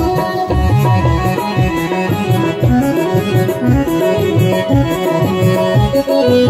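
Live Indian devotional music: a held, violin-like melody line over tabla, whose low bass-drum strokes bend in pitch.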